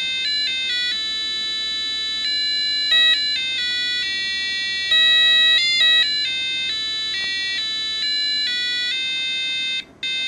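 Cheap LED cube digital alarm clock's alarm going off, playing an electronic melody of short and held notes through its small speaker instead of a standard beeper. The tune breaks off briefly near the end and starts over.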